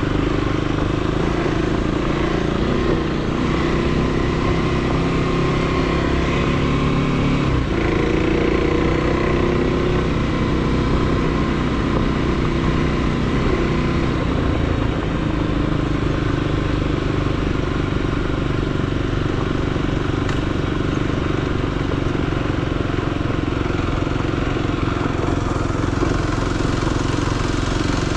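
Motorcycle engine running under way, its pitch shifting up and down with the throttle before settling to a steadier note about halfway through.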